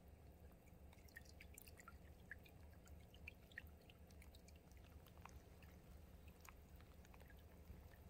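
Near silence: faint trickle of a shallow stream, with scattered small drips and ticks over a low steady hum.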